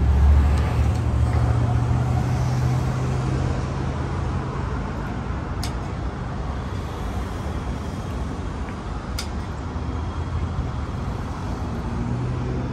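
Road traffic noise: a vehicle's low engine hum for the first few seconds that fades away, leaving a steady hiss of traffic, with two brief sharp ticks.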